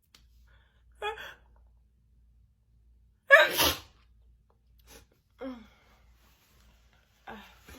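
A woman sneezing in a fit: a run of separate sneezes and catching breaths, the loudest a little before the middle. The sneezes are wet and spitty.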